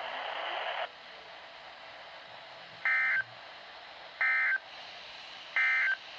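Three short bursts of NOAA Weather Radio SAME digital data tones, a shrill two-tone warble about a second and a half apart: the end-of-message burst that closes an alert test broadcast. A hiss of radio static cuts off under a second before them.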